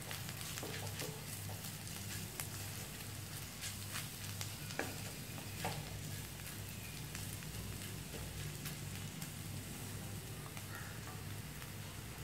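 Onions, chilies and anchovies sizzling in a non-stick wok while a wooden spatula stirs them, with scattered clicks and scrapes of the spatula against the pan. A steady low hum runs underneath.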